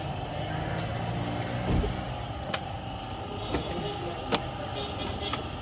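A car engine running steadily, with a dull knock about two seconds in and a few sharp clicks.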